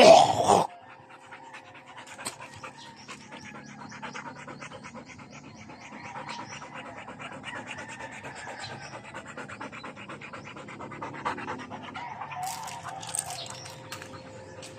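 A dog panting, quick even breaths that run on steadily after a short loud call right at the start.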